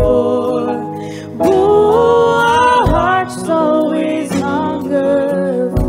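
A worship song: a man and a woman singing together over instrumental backing that includes a guitar.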